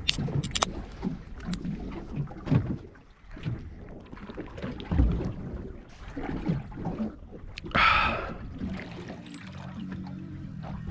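Water sloshing against a small fishing boat's hull at sea, with knocks and clicks of gear on board; two sharp clicks right at the start, a short loud rush about eight seconds in, then a low steady hum near the end.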